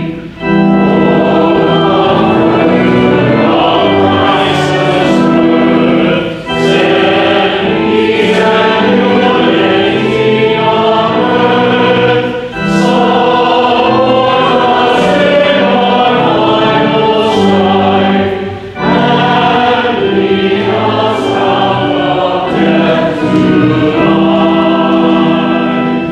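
A group of voices singing a hymn in unison-like sustained lines with accompaniment, in phrases of about six seconds with a short break between each.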